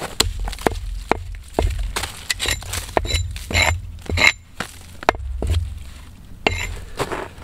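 Hatchet chopping wood on a stump chopping block: a series of irregular sharp chops, some with a brief metallic ring, over a low rumble.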